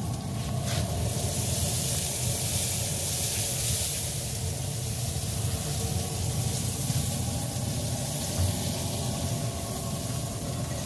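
Steady hiss of a pump spray bottle misting the meat on the pellet smoker's grates, over a low steady rumble.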